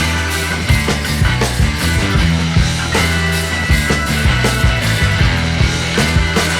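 Rock music with a steady beat over a bass line that changes note every second or so.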